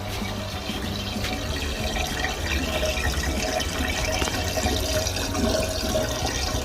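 Tap water running and splashing into a kitchen sink and down the drain, a steady flow that grows a little louder about halfway through: a drainage test of a kitchen sink drain rerouted to the balcony washing-machine drain.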